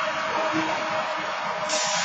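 BNSF diesel locomotive passing close by through a grade crossing: a steady, dense rush of engine and wheel-on-rail noise.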